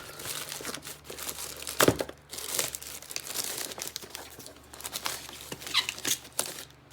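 Packaging being torn open and crumpled by hand: irregular crinkling and ripping, loudest about two seconds in.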